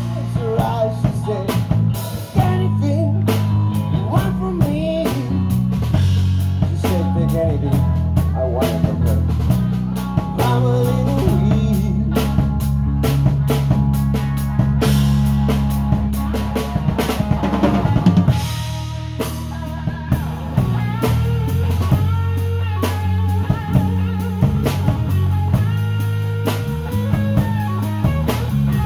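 Rock band playing an instrumental passage: a drum kit keeping a steady beat, bass guitar holding low notes, and a lead guitar with sliding, bent notes.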